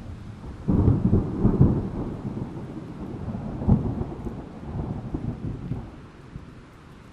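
A thunderclap over steady rain: a sudden crack about a second in breaks into a long rolling rumble with a second peak near the middle, then fades away, leaving the hiss of rain.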